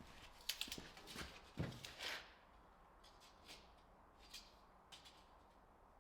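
Faint knocks and clicks: a cluster in the first two seconds, then a few scattered clicks.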